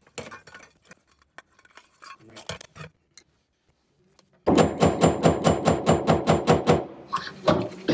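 A metal hammer striking a plastic-handled flathead screwdriver to knock a fuel pump lock ring loose, in sped-up footage: scattered light clicks at first, then about halfway a fast, even run of loud taps, roughly six a second, that stops near the end.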